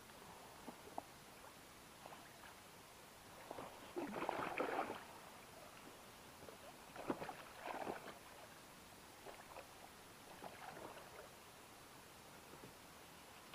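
Water splashing as a hooked wels catfish thrashes at the surface while being landed by hand, in two louder bursts about four and seven seconds in, then a few softer splashes.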